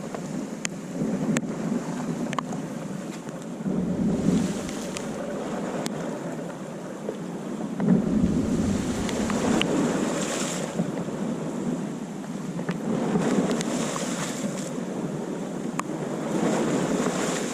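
Sea waves breaking and washing against a rocky shore, swelling louder every few seconds, with wind buffeting the microphone.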